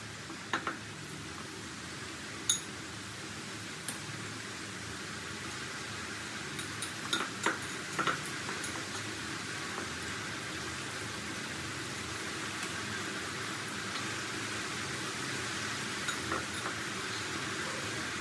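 Flour-dusted potato sticks deep-frying in hot oil in a wok, a steady sizzling hiss that grows slowly as more pieces go in. A few sharp clicks and knocks sound over it, with a cluster in the middle.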